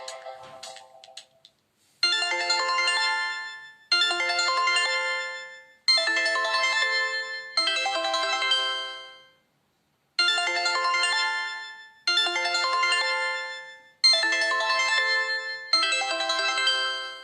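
A preloaded Nokia Lumia 521 ringtone playing: a short melodic phrase repeated about every two seconds, each repeat fading out, with a slightly longer pause about halfway through. The tail of the previous tone dies away in the first second or so.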